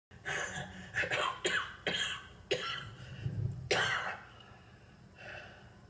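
Television sound: a run of about seven short, sharp sounds, irregularly spaced over the first four seconds, followed by a quieter stretch.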